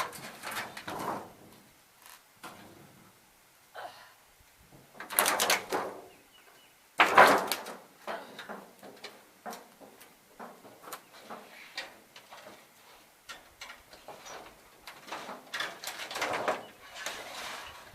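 A loose roofing panel being handled and dragged: bursts of scraping and clattering a few seconds apart, loudest about seven seconds in, with small clicks and knocks between.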